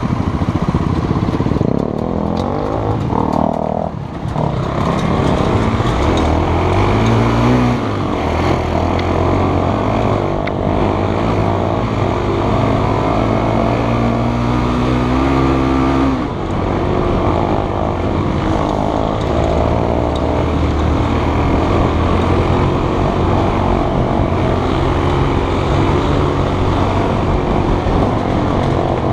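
Single-cylinder trail motorbike engine running under load on a rough dirt track. The pitch rises and falls with throttle and gear changes: the revs climb about six seconds in, hold high, then drop sharply about sixteen seconds in before settling again.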